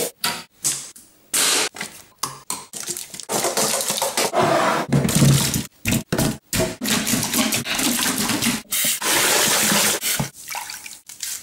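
Choppy run of short, rapidly cut kitchen sounds: water splashing and sloshing as food is dumped into a steel sink full of water, with cracks and scraping among them.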